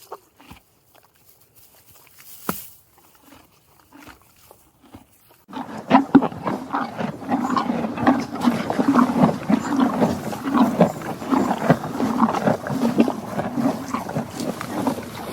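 Farm animal sounds: a few faint scattered clicks and snuffles, then about five seconds in a sudden onset of loud, continuous animal noise with irregular pulsing peaks.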